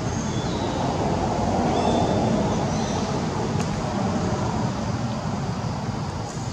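Steady outdoor background noise with a low rumble, with a few faint, short high chirps in the first three seconds.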